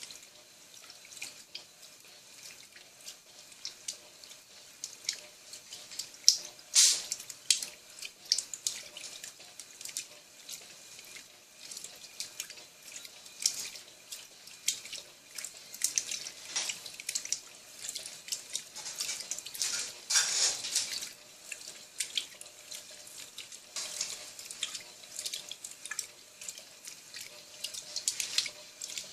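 Electrolux Turbo Economia LTD11 top-loading washing machine agitating two blankets in a full tub, water sloshing and splashing irregularly, with a louder splash about six and a half seconds in.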